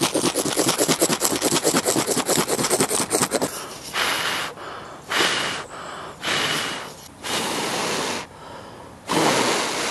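Ferrocerium rod scraped hard and fast, many strokes a second, throwing sparks onto artist's conk (Ganoderma applanatum) tinder fungus for about three and a half seconds. Then five short breaths are blown onto the ember that has caught in the fungus.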